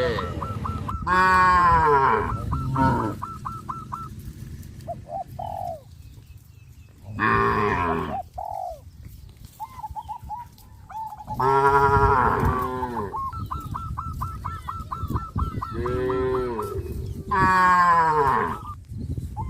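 Cattle mooing: about five loud, drawn-out moos, each bending in pitch, from different animals in the herd. Between them, twice, a rapid run of short high notes repeats evenly.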